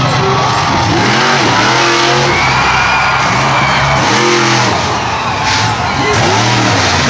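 Bounty Hunter monster truck's engine revving hard in repeated surges, its pitch climbing and falling back about every two to three seconds as the throttle is worked through a jump and landing.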